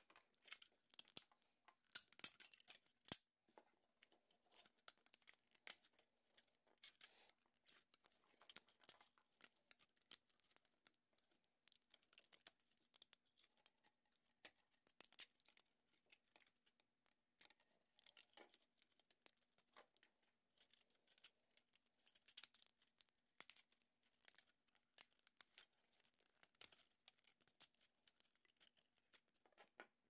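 Faint, irregular snapping, crackling and scraping of 3D-printed plastic as the brim and leftover print material are picked and peeled off the printed parts by hand.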